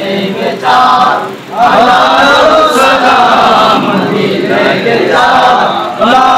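A group of men chanting an Islamic devotional recitation together in unison, loud and sustained, with a brief drop about a second and a half in.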